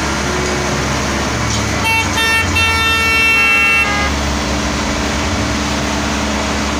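A vehicle horn honks about two seconds in: two short blasts, then one held for over a second. Under it a motor vehicle engine runs steadily.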